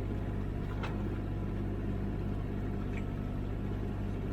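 Komatsu PC16 mini excavator's diesel engine running steadily, with a faint click about a second in.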